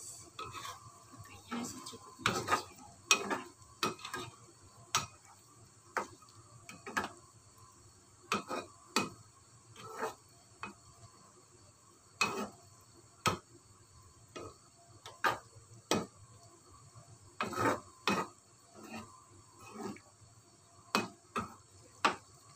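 Spatula stirring tofu and tempeh in coconut-milk sauce in a pan, knocking and scraping against the pan at irregular intervals, about once a second.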